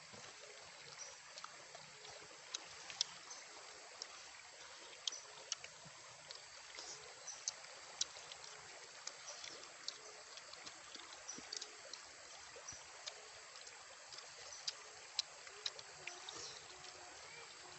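Close-up eating sounds: irregular wet smacks, sucking and chewing on grilled chicken, over a steady low hiss.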